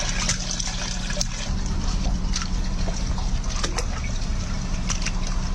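Backed-up water trickling and gurgling away down a drain that has just been cleared of a root blockage, with a steady low hum underneath and a few faint clicks.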